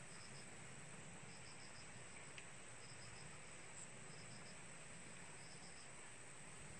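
Faint crickets chirping in short groups of three or four pulses, repeating about once a second over a steady thin high whine.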